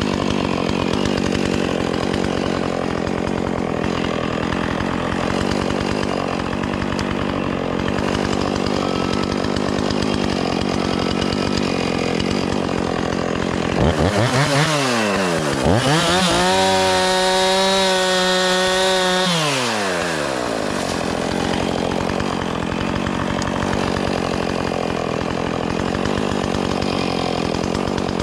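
Chainsaw idling, then revved up twice about halfway through and held at high revs for about three seconds before dropping back to idle.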